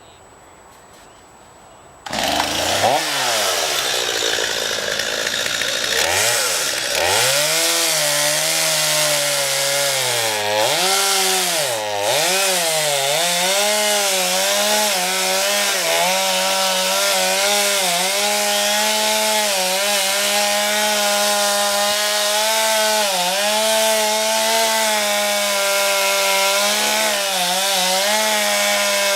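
Chainsaw comes in abruptly about two seconds in, revving up and down, then runs at high speed cutting into a tree trunk. Its engine pitch keeps dipping briefly as the chain bogs down in the wood.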